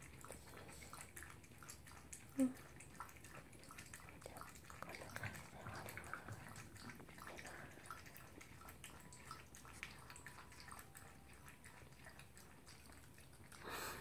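Toy poodle licking and lapping at the bowl clipped to its crate: a run of faint, irregular wet clicks. One brief, louder sound stands out about two and a half seconds in.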